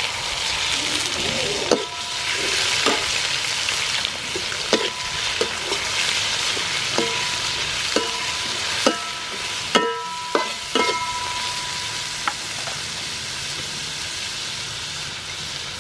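Scallops sizzling in hot oil in a metal wok as they are stir-fried. A metal spatula scrapes and clanks against the wok about a dozen times, several strikes ringing briefly.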